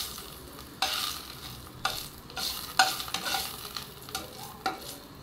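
Dried red chillies sizzling as they fry in oil in a wok, with a spatula scraping and knocking against the pan several times as they are stirred.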